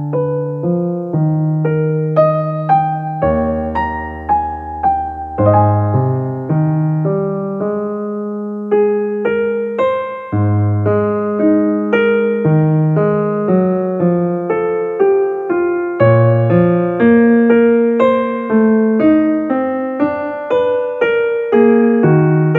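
Background piano music: a gentle run of notes over a bass line.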